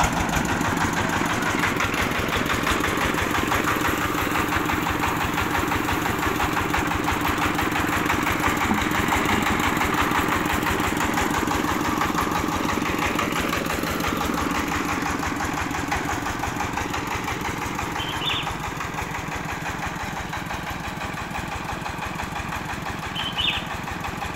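Diesel engine of a homemade mobile rice-milling machine running steadily, with a rapid, even knock from its firing strokes.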